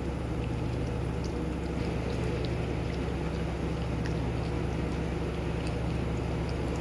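Steady low machine-like hum with a constant noise haze, unchanging throughout, with faint scattered small ticks over it.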